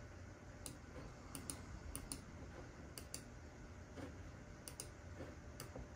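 Faint, scattered clicks of a laptop being operated: about ten short sharp clicks, several coming in quick pairs.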